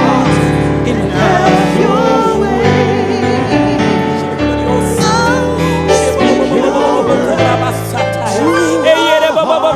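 Gospel worship music: voices singing with vibrato over a band, its bass notes held and changing about once a second.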